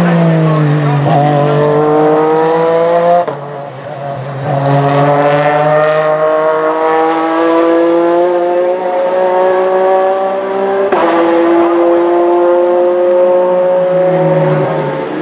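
Porsche 911 RSR (991) race car's 4-litre flat-six at full throttle, climbing through the revs in long pulls with sharp upshifts about three seconds in and about eleven seconds in. The pitch falls off near the end.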